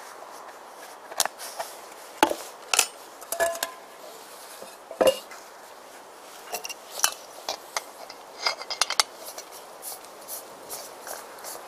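Stainless steel camping pot and cook kit being handled: scattered metal clinks, knocks and rattles, the loudest knock about five seconds in, with a quicker run of small clicks a little past halfway.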